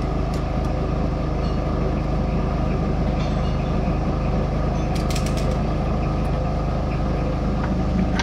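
Steady hum of workshop machinery running, with a few light metal clicks about five seconds in.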